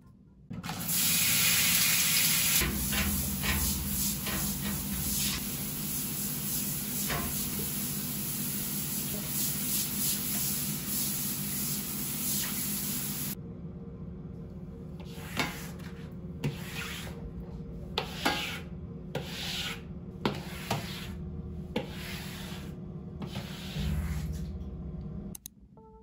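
Water spraying steadily onto a tiled bathroom floor for about twelve seconds. Then a plastic squeegee is pushed across the wet tiles in a series of short scraping strokes, about one stroke a second.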